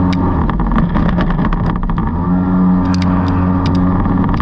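Kingfisher jet boat's engine running steadily under way. Between about half a second and two and a half seconds in, as the boat crosses a shallow riffle, the engine's note blurs under a rapid run of sharp knocks and clicks, and a few more knocks come near the end.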